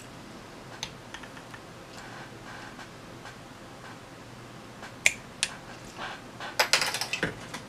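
Scissors snipping fishing line at a reel's spool: a sharp click about five seconds in, then a quick run of small clicks and light knocks near the end.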